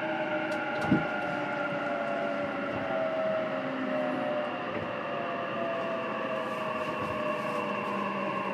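JR East E233 series electric train, heard from inside a motor car: the traction motors and VVVF inverter whine in several tones that slowly fall in pitch as the train slows for a station, over steady rolling noise. A single thump about a second in.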